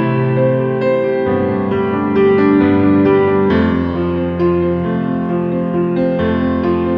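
Background piano music: sustained notes and chords that change every second or two.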